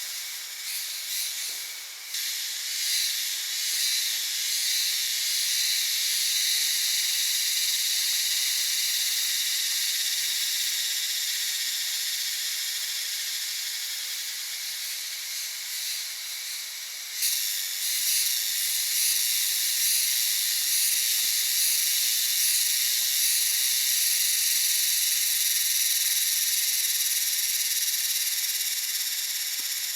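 Forest insect chorus, cicada-like, a steady high-pitched buzzing hiss that swells abruptly about two seconds in and again about halfway through.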